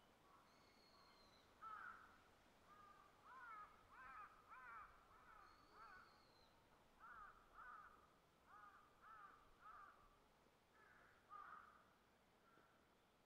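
Faint crows cawing in runs of short calls, about two a second, with a thin high call from another bird twice, once at the start and once about six seconds in.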